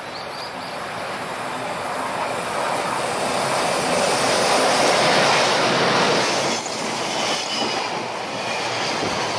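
EH500 electric freight locomotive hauling a train of container wagons past at close range. Its running noise builds to a peak about five seconds in as the locomotive goes by. The wagons then roll past, their wheels clattering over the rails.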